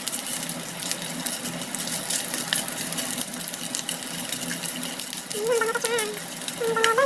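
Hot oil sizzling and crackling in a frying pan as sticks of food deep-fry in it, a steady hiss with many small pops.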